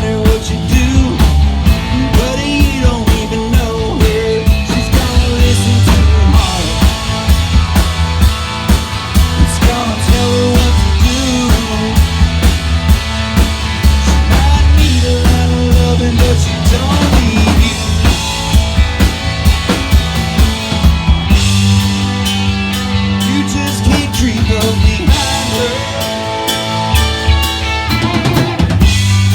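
Live rock band playing an instrumental passage: a drum kit keeps a steady beat under sustained bass notes, while a lead line bends up and down over the top.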